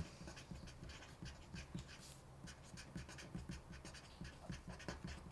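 Felt-tip marker writing on paper: a faint run of short scratches and squeaks, one for each stroke of the letters.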